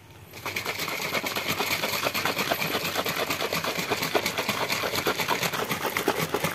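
Liquid sloshing inside a capped plastic tumbler as it is shaken hard and fast by hand, in a quick, even rhythm, beating a raw egg yolk into a spiced infusion to raise a froth. The shaking starts about half a second in.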